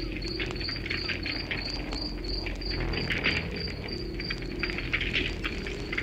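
Wood fire crackling and popping, with a cricket chirping steadily about three times a second.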